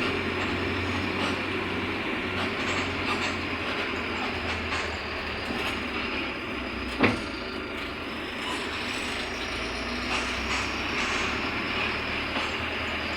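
Mercedes-Benz OF-1721 Bluetec 5 city bus from inside the cabin while under way: a steady diesel engine drone with body rattles and clicks, and one sharp knock about halfway through.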